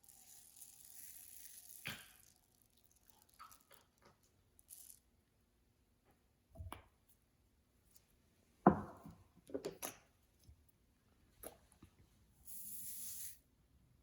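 Slime being worked by hand: scattered wet squishes and sticky tearing sounds, the loudest one about two thirds of the way in. Two short high hisses, one at the start and one near the end.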